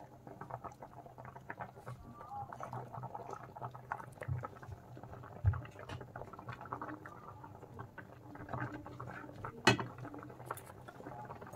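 Thickened milk simmering in a pan with chhena balls in it, a faint, fine crackle of small bubbles popping, with a couple of sharper clicks.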